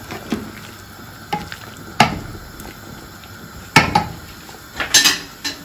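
Metal spoon stirring soup in a large aluminium pot, clinking sharply against the pot a few times, about two seconds in, near four seconds and in a quick cluster around five seconds. Under it the soup bubbles steadily as it comes back to the boil.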